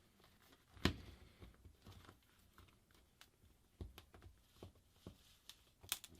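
Faint, scattered clicks and scrapes of a pick working at the edge of a shattered phone screen, trying to pry the glass and digitizer away from its adhesive. The sharpest clicks come about a second in, near four seconds and near six seconds.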